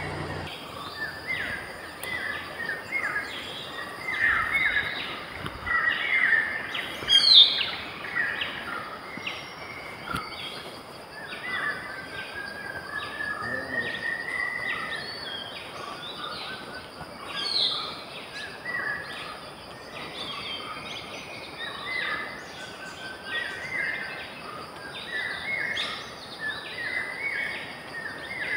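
Wild birds calling: dense short chirps repeating throughout, with a louder rising whistle about seven seconds in and another near eighteen seconds, over a steady hiss.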